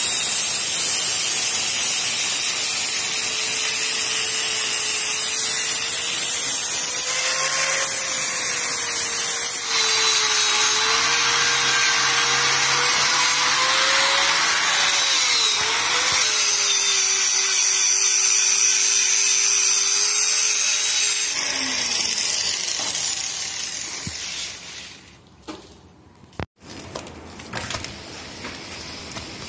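Angle grinder running with its abrasive disc against a welded stainless steel railing joint: a loud grinding hiss over a motor whine that wavers as the disc is pressed into the metal. About 21 s in, the motor is switched off and winds down, and the sound fades away.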